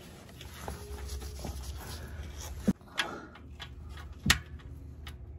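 A socket wrench clinking against the oil-pan drain plug as it is fitted back in: three sharp metallic clicks, the last and loudest a little over four seconds in.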